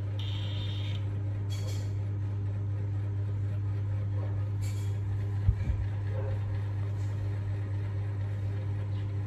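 Steady low mechanical hum, with a soft thump about five and a half seconds in.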